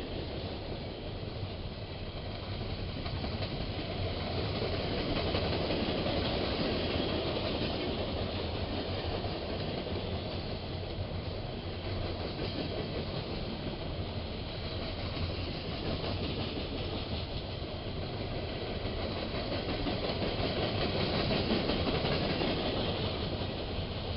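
A train rolling past with a steady, continuous noise over a low hum, swelling louder twice.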